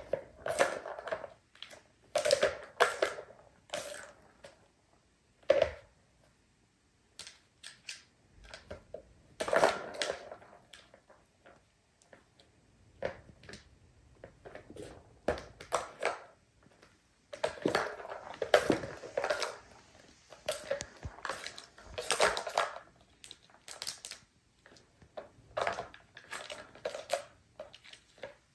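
Plastic balls rolling and rattling around the tracks of a three-tier plastic cat tower toy as kittens bat at them, with clicks and knocks of paws on the plastic. It comes in irregular bursts separated by short quiet gaps.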